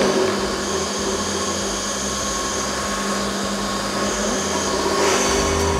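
High-shear disperser (dispergator) on a small pilot production line running steadily with a constant hum, mixing the ingredients of a batch into an even mass.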